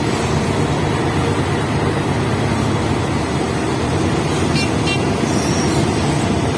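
EMD GT-class diesel locomotive's engine drone and coach wheels running steadily over the rails, heard from the first coach right behind the locomotive.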